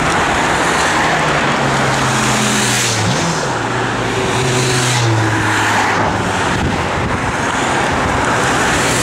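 Race convoy of team cars and a police motorcycle driving past one after another, engine and tyre noise with engine tones dropping in pitch as each vehicle goes by, about three and five seconds in.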